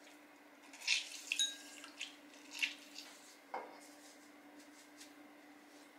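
Lemon squeezed by hand over a drinking glass: juice dripping and a few sharp taps and clicks in the first few seconds, one of them ringing briefly like glass being struck. A faint steady hum runs underneath.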